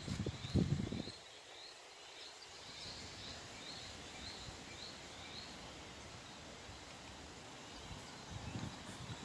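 Hurricane wind gusting against the microphone in the first second and again near the end, over a steady rushing haze, with a short high chirp repeating about three times a second.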